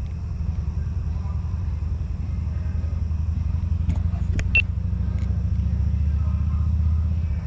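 Low, fluttering rumble of wind buffeting the microphone, with a few brief clicks and a short high chirp a little past halfway.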